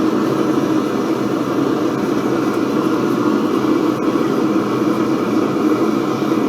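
Propane torch flame burning with a steady, even roar while it heats steel pipe for bending.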